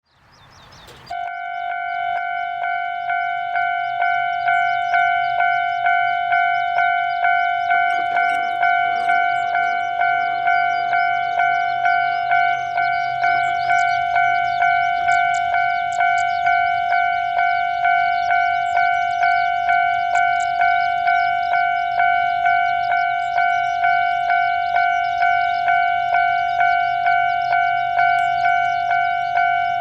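Japanese railway level-crossing warning bell ringing, starting about a second in with an even, quick series of ringing strikes of about one and a half a second, signalling that a train is approaching.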